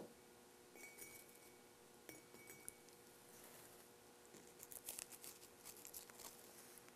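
Near silence with a faint steady room hum, a few light clinks of a ceramic mug early on, then soft crunching as a crisp bizcochito (a lard shortbread cookie) is bitten and chewed from about four and a half seconds in.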